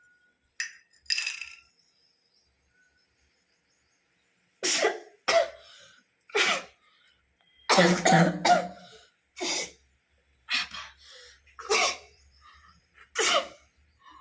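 A woman sniffing dry ginger powder about a second in, then sneezing and coughing in a run of about nine sudden, loud bursts, set off by the powder's sharp smell.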